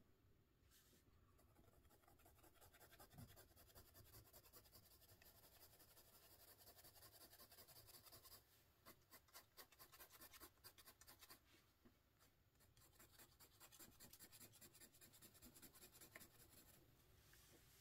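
Faint scratching of a colored pencil shading on paper in quick back-and-forth strokes, with short pauses about eight and twelve seconds in.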